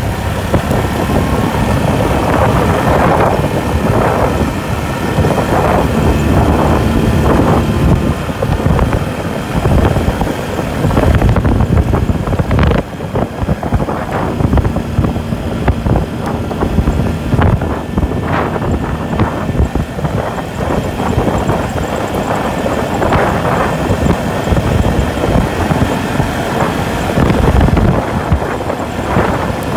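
Can-Am ATV engine running at a steady cruise along a gravel road, with tyre rumble and wind buffeting the microphone.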